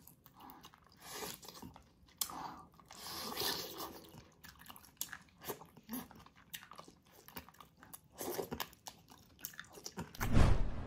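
Close-miked eating of spicy braised ox feet: wet, sticky chewing and biting on the gelatinous skin and tendon, with many small smacks and clicks. A louder, deeper thump comes about ten seconds in.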